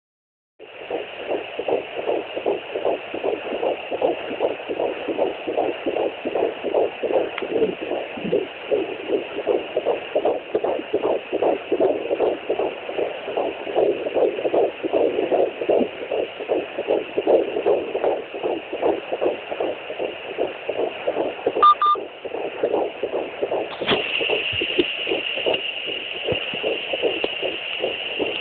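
Unborn baby's heartbeat picked up by a fetal Doppler ultrasound: fast, even whooshing pulses over a steady hiss. A short electronic beep about twenty-two seconds in, and the hiss grows stronger about two seconds later, as the probe shifts.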